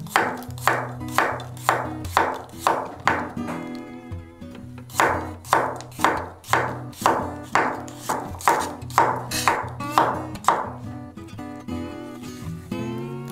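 Chef's knife slicing garlic cloves on an end-grain wooden cutting board: sharp knocks about two a second, with a pause of a second or so near a third of the way in. Acoustic guitar music plays underneath.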